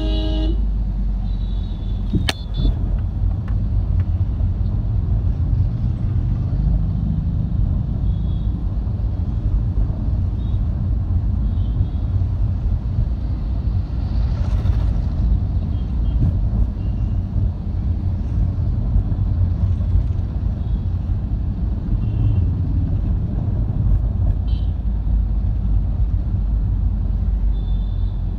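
Steady low rumble and road noise of a vehicle driving through town traffic, heard from on board. Short horn toots from other traffic come now and then, and there is a sharp click about two seconds in.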